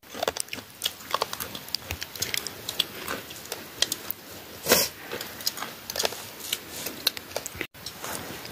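Wood campfire crackling and popping in irregular sharp clicks, with one louder, longer crackle about halfway through.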